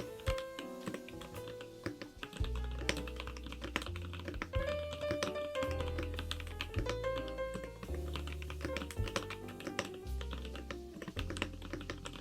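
Mechanical keyboard typing: a KBDFans Tofu65 with Kailh Icecream switches, with rapid, irregular keystrokes over background music that has a steady bass line.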